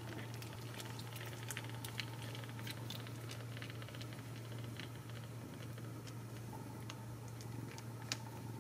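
Newborn Ragdoll kittens suckling at their mother: many small wet clicks and smacks, irregular and close together, over a steady low hum.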